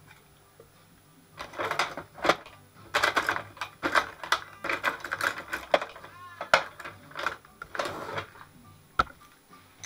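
Irregular clattering and clicking of hard metal and plastic parts being handled, in repeated flurries, with a quick run of ratchet-like clicks past the middle and a single sharp click near the end.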